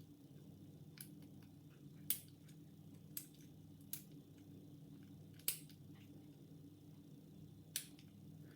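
Faint, scattered metallic clicks of a homemade half-diamond hacksaw-blade pick working the pins of a tensioned 6-pin ERA Euro cylinder lock, the pins setting towards a full set. The clicks are about a second apart or more, the loudest about two seconds in and about five and a half seconds in.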